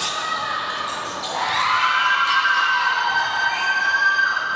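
Spectators cheering in one long, drawn-out shout that rises in about a second in and holds for about three seconds, greeting a three-point basket. A basketball bounces on the court floor near the start.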